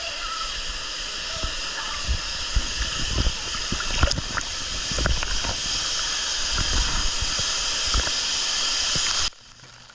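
Waterfall and spray sprinklers pouring water, a steady rushing hiss with irregular low thuds. It cuts off suddenly near the end.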